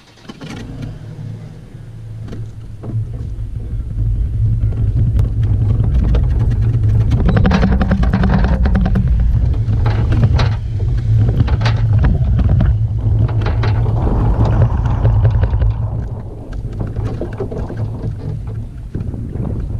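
Steady low rumble of a boat being towed on a trailer at road speed, with air rushing past and many sharp rattles and knocks from the boat and trailer over the road. The rumble builds over the first few seconds and eases a little near the end as the rig slows.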